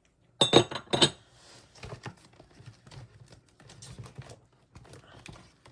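Small hard objects clacking and being handled on a tabletop: two sharp clacks about half a second and a second in, then lighter scattered taps and rattles.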